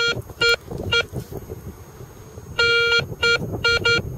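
Garrett metal detector giving a string of short pitched beeps as the coil is swept over a target, with one longer beep about two and a half seconds in. The tone is its pull-tab signal, here given by a modern 20 pence coin.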